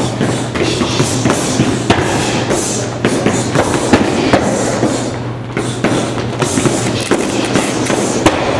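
Punches and kicks from several people landing on heavy punching bags: irregular thuds and slaps, several a second and overlapping, over a steady low hum.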